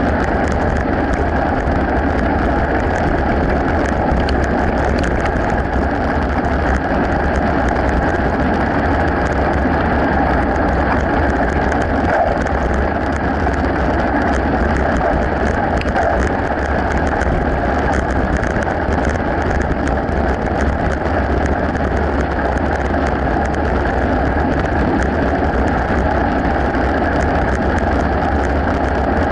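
Mountain bikes rolling along a gravel path, heard from a camera on a moving bike: a steady rush of wind and tyre noise with a constant fine crackle of gravel.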